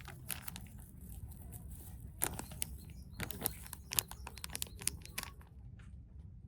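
A series of irregular sharp clicks and taps, clustered in the middle, over a steady low background rumble.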